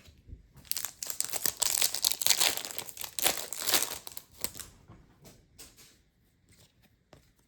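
Foil trading-card pack wrapper crinkling and being torn open for about four seconds, followed by a few light clicks and rustles as the cards are handled.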